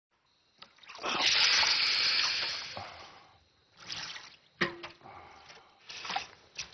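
Water splashing in a basin as feet are washed: a longer rush of water about a second in, then scattered small splashes and drips.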